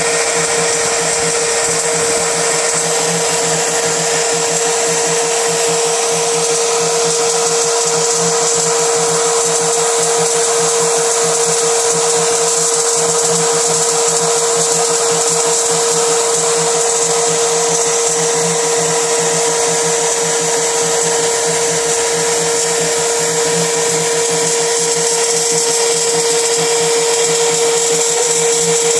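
CNC spindle running steadily at high speed with a constant whine, drilling 0.8 mm holes in 5 mm PVC sheet.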